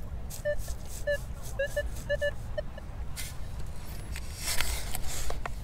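Minelab Manticore metal detector giving a quick run of short, same-pitched beeps as it passes over buried coins in a coin spill. After that comes the scrape and rasp of a long-handled sand scoop digging into the beach sand, loudest a little past the middle.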